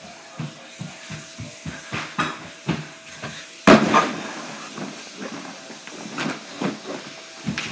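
A person belly-flopping onto a hallway floor: a run of short thumps, then one loud thud about three and a half seconds in as the body hits the floor, trailing off into a hiss.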